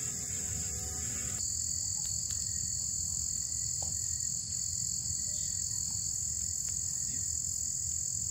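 Insects, such as crickets, chirping together in a steady high-pitched drone, with a low rumble underneath. Soft background music cuts off about a second and a half in.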